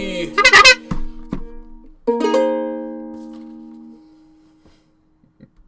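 A short, loud honk about half a second in, followed by two knocks, then a final chord strummed on a plucked string instrument that rings out and fades away over about two seconds, ending the song.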